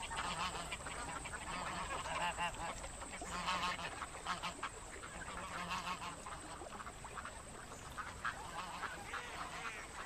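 A flock of waterbirds on a lake calling over one another: many short, overlapping quacks and honks.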